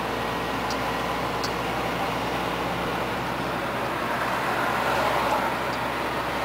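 Scania 124L 420 truck's 12-litre inline-six diesel running steadily while driving, heard from inside the cab mixed with tyre and road noise. The rush of noise grows a little louder about four to five seconds in.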